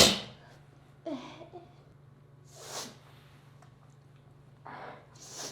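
A woman's loud sneeze at the very start, trailing off, followed by a short vocal murmur and several fainter sniffs and breaths.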